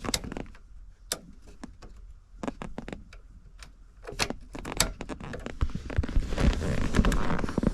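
Small metal parts clicking and clinking as washers, a stopper and a nut are handled and fitted onto the end of a heater cable, with a busier rattling of hardware from about two-thirds of the way in.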